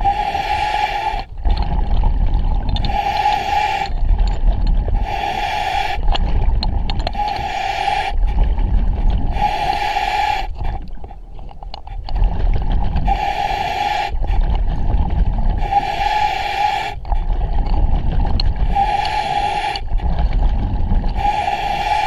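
A diver's breathing regulator underwater: a hissing inhale with a steady tone about every two seconds, alternating with the low rumble of exhaled bubbles, with a short pause about halfway.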